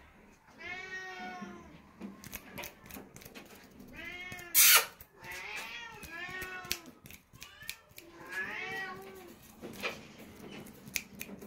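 Golden chinchilla Scottish Fold cat meowing about five times in drawn-out, rising-and-falling calls while being held up under its forelegs. A brief, very loud burst of noise comes about halfway through.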